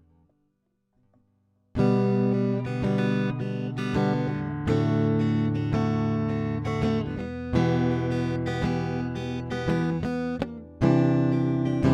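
Guitar playing strummed chords, starting sharply about two seconds in, with a new chord struck roughly every three seconds and each left to ring.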